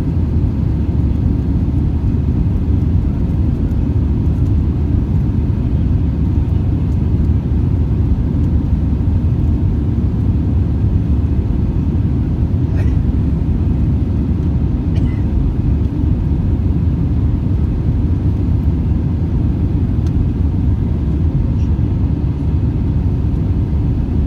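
Steady low rumble of an Airbus A320-214's CFM56 turbofan engines and airflow, heard inside the passenger cabin in flight.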